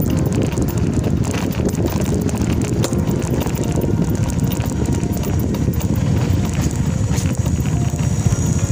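Footsteps on a rough dirt road, heard as many irregular clicks, under steady wind and handling noise on a handheld phone microphone. A motorcycle engine comes up close from behind near the end.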